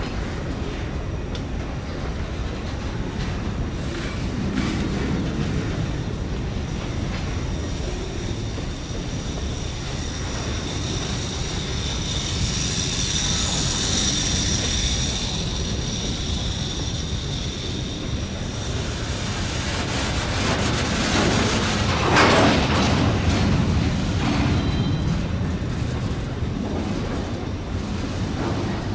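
A train rolling past with a steady low rumble and scattered clicks of its wheels on the rails. A high metallic wheel squeal swells and fades about halfway through, and a louder clatter comes about three-quarters of the way in.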